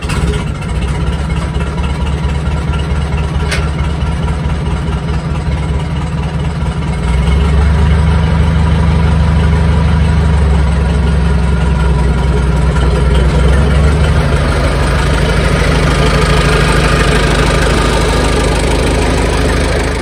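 Farmall tractor engine running steadily, growing louder about seven seconds in as it works harder.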